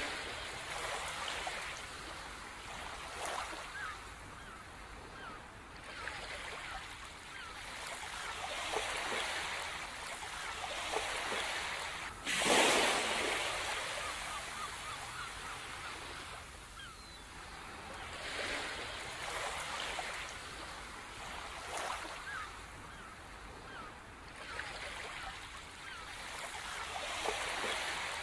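Sea waves washing onto a shore, swelling and fading every few seconds, with one louder breaking wave about twelve seconds in.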